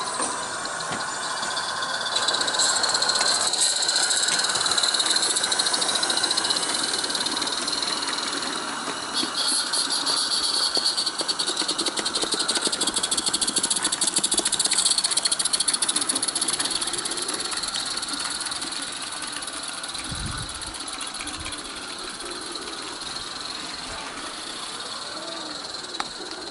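Small Roundhouse live steam garden-railway locomotive running, a steady steam hiss with rapid chuffing. It grows louder a couple of seconds in and fades away after about the middle as it draws off.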